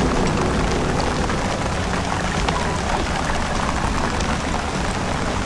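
Steady rain falling, with many scattered drop ticks over an even hiss.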